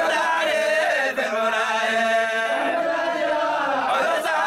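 Group of men chanting a Somali Sufi dhikr in unison, unaccompanied, in long drawn-out sung lines.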